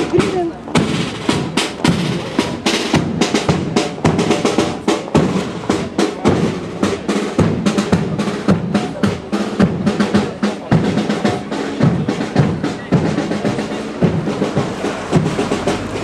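Snare and bass drums beating a steady marching cadence, with rolls, for a column marching in step.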